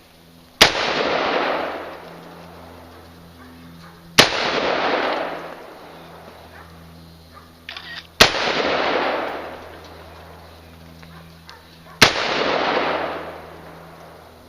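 Colt AR-15 rifle fired four single shots, slow and evenly spaced about four seconds apart. Each sharp report is followed by a long echo that dies away.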